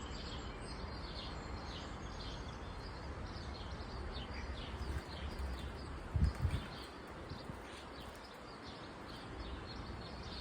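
Small birds chirping repeatedly in short calls over a steady low background rumble, with two brief low thumps a little after six seconds in.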